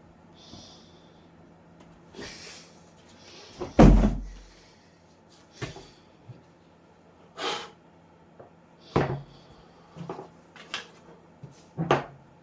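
Handling noises while a crossbow is unpacked: scattered knocks, clunks and rustles of parts and packaging being moved about. The loudest is one heavy thump about four seconds in, with sharper clicks and knocks later on.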